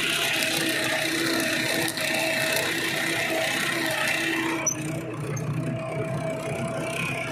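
Tractor diesel engine running steadily, heard from on board the tractor. About two-thirds of the way through, the sound turns duller as its higher hiss drops away.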